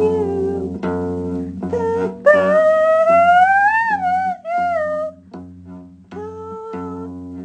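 Song music with plucked guitar and bass guitar. A wordless melodic line glides up and falls back in the middle, then the music thins out.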